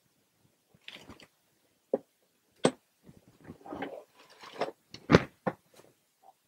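Sporadic crinkling and sharp clicks from handling, with irregular gaps between them; the loudest click comes a little after five seconds in.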